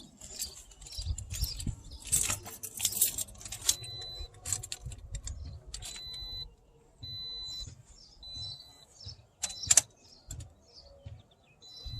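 Clicks, rattles and rustling of hands working on the car's door speaker and its wiring. From about four seconds in come several short, high-pitched beeps, each about half a second long.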